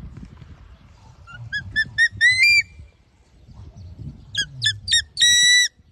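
A young eagle calling: two bouts of high, whistled notes, each a quick run of short notes ending in a longer held note.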